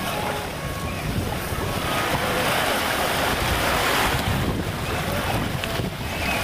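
Small waves washing up onto a sandy beach, with wind rumbling on the microphone; one wash swells up about two seconds in and fades away after about four seconds.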